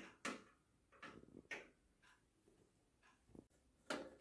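Faint, scattered clicks of a screwdriver working a screw out of a quartz heater's sheet-metal casing, a few light ticks with the sharpest near the end.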